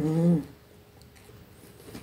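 A woman's brief closed-mouth hum, 'mmm', about half a second long, dipping in pitch at the end.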